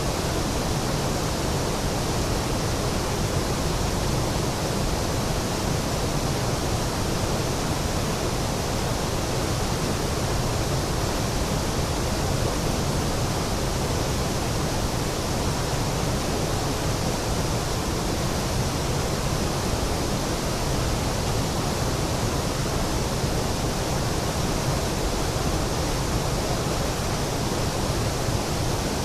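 Waterfall: falling water making a loud, steady, even rush with no change.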